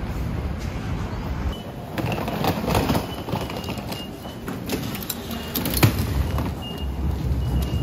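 Outdoor street noise with wind rumbling on the microphone, a few sharp knocks and clatters, and short high beeps repeating on and off in the background.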